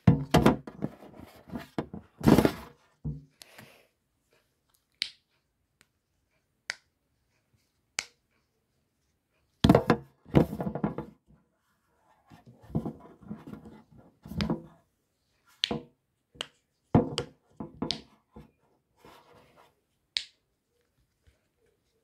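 Fidget toys, among them a silicone pop-it, handled and pressed: irregular clusters of knocking and rubbing, with single sharp pops between them.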